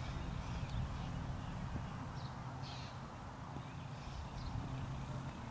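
Quiet outdoor ambience: a steady low hum with a few faint, short bird calls scattered through.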